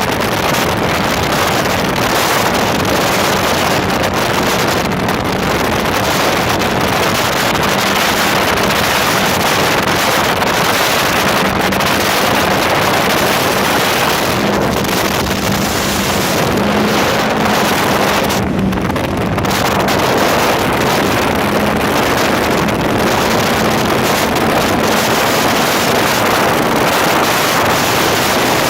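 Donzi speedboat running at speed: a steady engine drone with a faint wavering tone, under heavy wind noise on the microphone.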